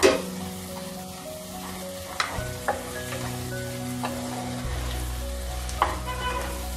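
Onion, peas and ginger-garlic paste sizzling in hot oil in an aluminium pressure cooker while a wooden spatula stirs them, with a few sharp knocks of the spatula against the pot.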